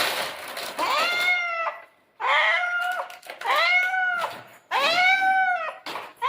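Domestic cat meowing loudly over and over: about four long meows, each rising and then falling in pitch, from a cat excited by the smell of fish.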